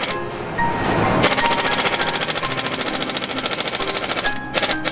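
Pneumatic air tool rattling rapidly while undoing fasteners on a diesel engine. After a short pause at the start it runs steadily from about a second in, with two brief breaks near the end.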